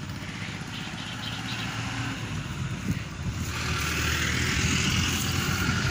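A motor vehicle engine running steadily with a low hum, growing louder with a rising hiss from about halfway through.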